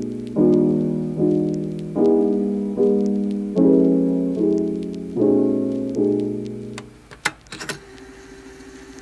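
Background piano music: sustained chords struck about once every 0.8 s, each fading before the next. The music stops about seven seconds in, followed by a few brief sharp sounds.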